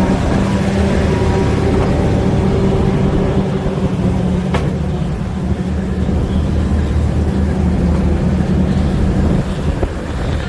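Engine of a fishing boat running at a steady, loud drone, with a single sharp click about four and a half seconds in.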